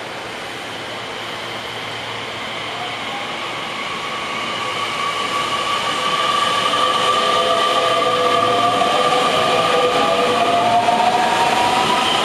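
Nishitetsu 3000 series electric train pulling out and accelerating past the platform. Its inverter-driven traction motors whine in several tones that rise steadily in pitch. The sound grows louder until about six seconds in, as the cars run close by.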